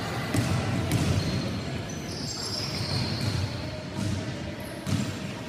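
Basketball dribbled on a wooden gym court, with irregular thuds about once or twice a second, players' running steps, and a few high squeaks about two seconds in.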